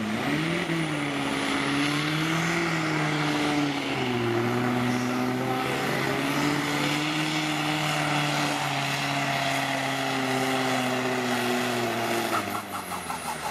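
Modified diesel pulling tractor running hard under full load as it drags the weight sled, its engine note wavering up and down. Near the end the engine note dies away and goes uneven.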